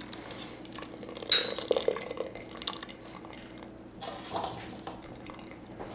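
Metal cookware and utensils clinking: a sharp clink with a brief ring about a second in, then several lighter clinks and knocks.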